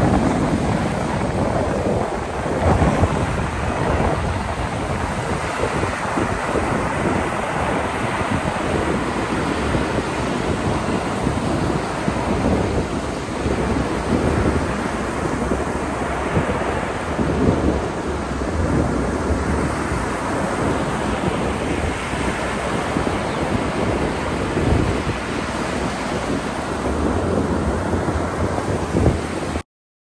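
Ocean surf breaking and washing up the beach in a continuous roar, with a heavy rumble of wind on the microphone. It cuts off suddenly near the end.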